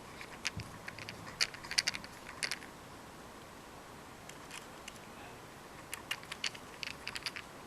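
Small sharp clicks and taps of a screwdriver working a tiny screw out of a compact digital camera's body, in two clusters with a pause between.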